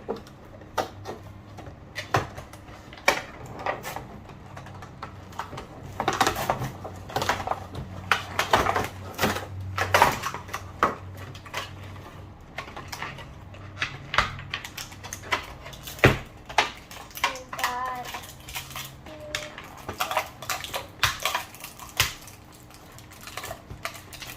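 Hand-unboxing of doll packaging: many irregular clicks, knocks and rattles of plastic and cardboard as the dolls and small plastic accessories are pulled free.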